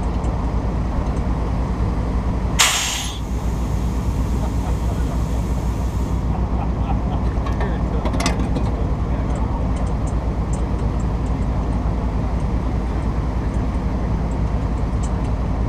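Tow truck's engine running steadily with a low, even rumble. About three seconds in, a sharp burst of air hiss that tapers off over a few seconds, and a second short hiss a few seconds later.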